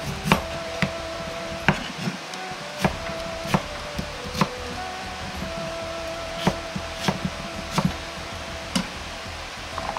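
Kitchen knife chopping a raw potato on a plastic cutting board: about a dozen irregular strokes of the blade hitting the board, over soft background music.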